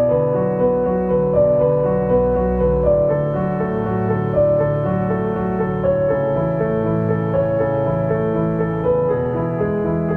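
Background music: a slow piano piece, single held notes changing about once a second over sustained chords.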